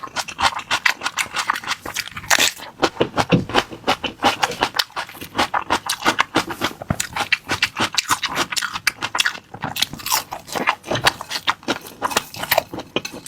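Close-miked chewing of a chicken leg roll with crispy-roasted chicken skin: a rapid, uneven run of small crunchy, clicky mouth sounds.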